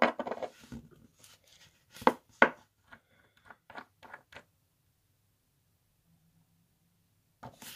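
Knocks and clicks of a small glass nail polish bottle and its cap being handled against a wooden table as the bottle is opened: two sharp knocks about two seconds in, a few lighter taps after, then quiet.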